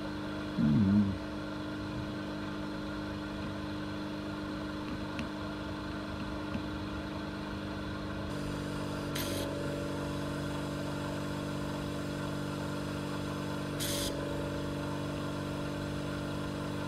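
Small 24-volt vacuum pump running with a steady hum; about eight seconds in its note shifts lower. Twice, around nine and fourteen seconds, a short hiss as the trigger valve is opened and air is sucked in through the desoldering nozzle. A brief louder wavering sound about a second in.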